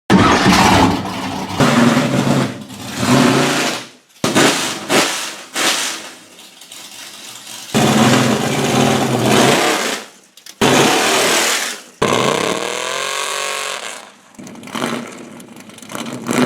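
A motor or engine running and revving in several abruptly cut stretches, with the pitch climbing in one stretch past the middle.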